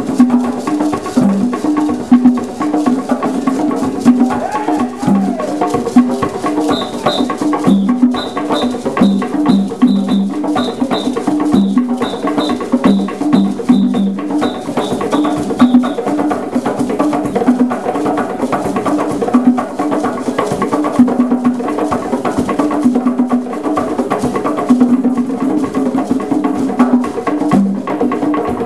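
East African drum ensemble playing a dense, driving interlocking rhythm on tall wooden hand drums, with a drum on a stand struck with sticks adding a sharp, woody knock. For several seconds in the middle, a short high pip repeats about twice a second over the drumming.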